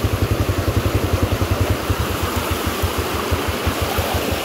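A small vehicle engine running with a clear low beat of about a dozen pulses a second. About two seconds in, the beat slows and turns uneven.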